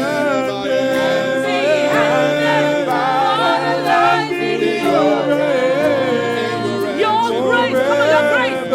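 Worship band and singers performing a slow gospel worship song: voices singing sustained, wavering melodic lines over steady held chords.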